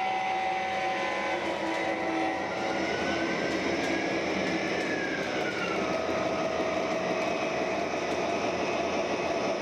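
MTH Premier O-scale model of a CSX AC4400CW diesel running, its Proto-Sound 3.0 speaker playing a diesel locomotive's engine sound over the model's running noise. One tone glides up and back down near the middle.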